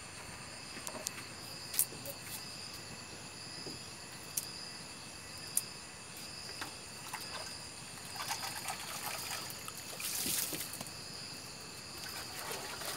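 Lemongrass stalks being peeled and cleaned by hand: a few sharp snaps and crackly rustling, loudest about ten seconds in, over a steady high chirring of night insects.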